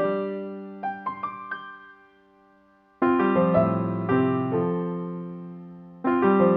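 Background music: easy-listening piano playing sustained chords, with a short run of notes about a second in, a brief pause, then the chords starting again.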